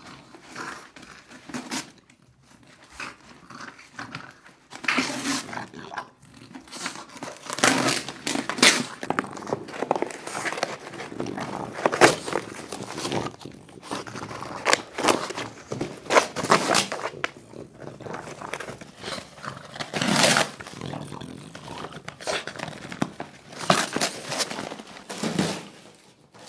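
French bulldog ripping and chewing a cardboard parcel box: irregular bursts of tearing and crinkling cardboard, with short pauses between rips.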